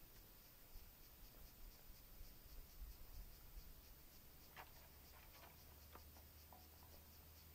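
Near silence, with a few faint clicks and scrapes about halfway through from a telescopic antenna mast being lowered and collapsed by hand.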